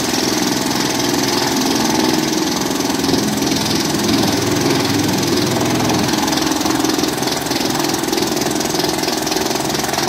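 Vantec 750 R8 forest drum chipper running under load, its engine running steadily as logs are fed in and chipped and the chips are blown out of the discharge chute.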